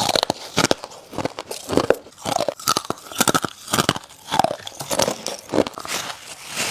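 Teeth biting into chunks of frozen freezer frost ice: a steady run of crisp, irregular crunches.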